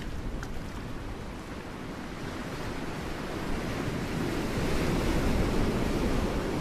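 Ocean waves washing against rocks, a steady rushing surf that swells louder about halfway through as a wave surges in, with wind on the microphone.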